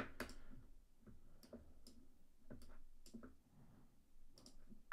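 Faint, irregular clicks of a computer mouse, spaced roughly half a second to a second apart, against near silence.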